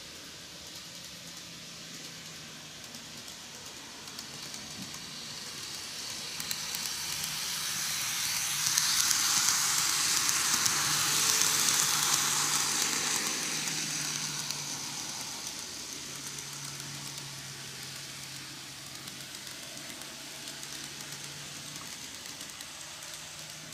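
N-gauge model train running, a Greenmax Meitetsu EL120 electric locomotive model: a high hiss of wheels on the rails over a low motor hum. It swells as the train passes close by in the middle, then fades as it runs off.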